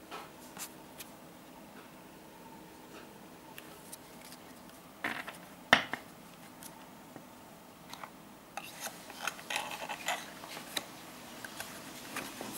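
Paper playing cards being handled: scattered light clicks as the fanned cards are gathered, a sharp tap as the deck is squared just before six seconds in, then a flurry of quick clicks and rubbing in the last few seconds.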